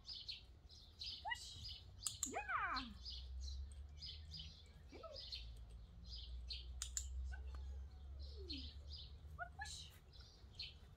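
Small songbirds chirping in quick, repeated short calls, over a low steady rumble.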